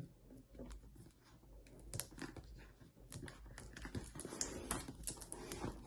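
Hands breaking the seal on a product box and starting to open it: a run of faint, irregular light clicks and scratches, busier and a little louder in the second half.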